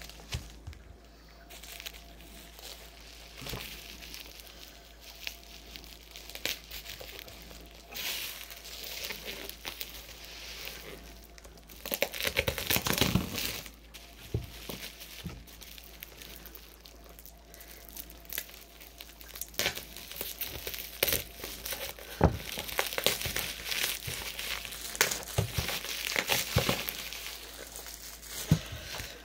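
Bubble wrap being handled and pulled off a parcel, crinkling and crackling in irregular bursts, loudest about halfway through and again in the last third.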